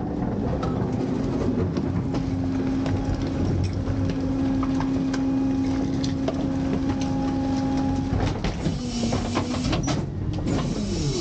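Autocar / McNeilus rear-loader garbage truck running a packing cycle, its hydraulics whining steadily over the raised-rev engine as the packer panel sweeps down into the hopper, with scattered knocks of garbage being shifted. The whine drops in pitch after about eight seconds and falls away near the end as the cycle finishes.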